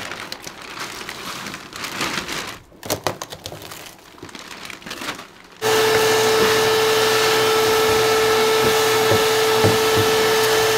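Irregular scrapes, cracks and rustles of material being pulled out by hand. Then, about halfway through, an electric motor switches on abruptly and runs steadily with a loud, steady mid-pitched whine.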